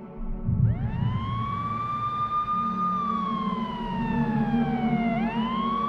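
Emergency vehicle siren wailing: it rises to a high pitch about half a second in, holds, slowly falls, then rises again near the end, over a low rumble.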